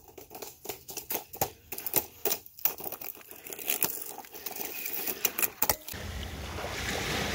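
HuaF amphibious RC monster truck driving over a stony dirt trail, its wheels and plastic body clattering on pebbles and twigs in a rapid, irregular run of clicks and knocks. About six seconds in this gives way to the steady wash of waves on a rocky shore.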